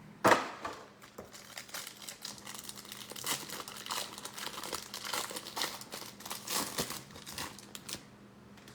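Packaging crinkling and tearing as a trading-card hanger box is opened, beginning with one sharp snap just after the start and followed by several seconds of dense crackling.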